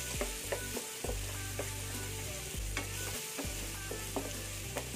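Minced garlic sizzling in hot oil in a nonstick frying pan while a wooden spatula stirs it, scraping and tapping against the pan at irregular moments. The garlic is being sautéed until lightly browned.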